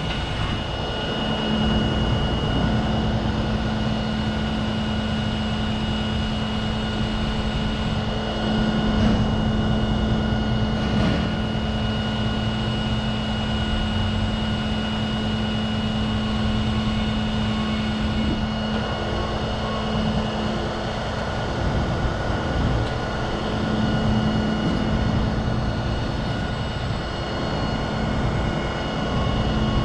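Heavy diesel engine running steadily, with a thin high-pitched whine held over it.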